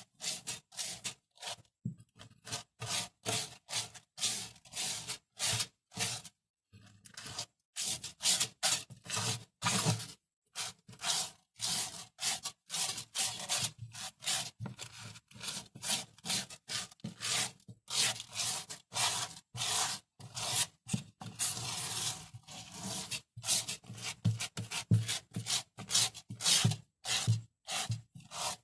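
Granular aquarium soil being spread over the tank bottom: quick, repeated rubbing and scraping strokes of grit against glass, about two a second, with a brief pause about a third of the way through.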